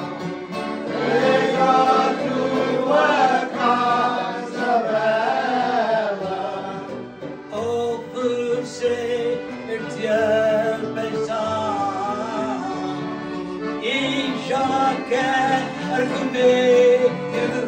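A group of men singing together in unison, accompanied by a piano accordion's sustained chords and a strummed acoustic guitar.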